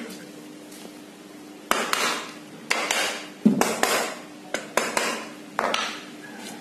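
A wooden mallet knocking on a ceiling fan motor's metal end cover, about seven sharp knocks, each with a short ring. The cover is being tapped while its screws are tightened evenly, so the new bearings seat square and a bearing sitting slightly crooked is freed.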